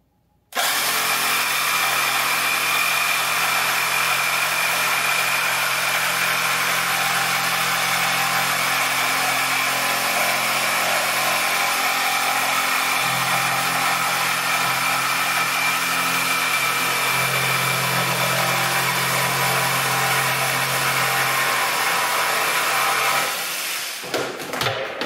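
Cordless jigsaw cutting across a wooden shelf board, starting about half a second in and running steadily for over twenty seconds. It stops near the end, followed by a few knocks as the cut-off piece of board comes free.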